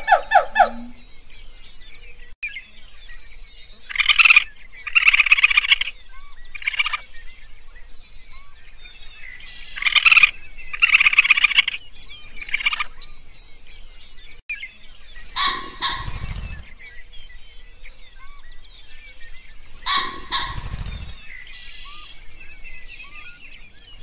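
Birds calling: two groups of loud, harsh chattering calls a few seconds apart over faint background chirping. Later come three shorter bursts with a low rumble under them.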